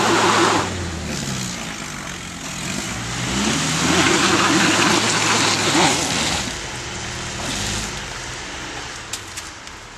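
Off-road 4x4's engine revving hard in surges that rise and fall in pitch, with a rushing noise over it; it dies away over the last few seconds.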